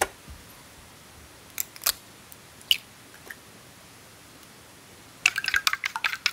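A few sharp taps as an egg is cracked into a stainless steel cup, then chopsticks beating the egg, clinking rapidly against the metal cup, starting near the end.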